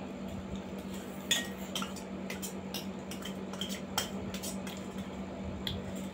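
Metal spoons and forks clinking and scraping on stainless-steel plates while eating, a scatter of sharp clinks with the loudest about a second and a half in and again at about four seconds.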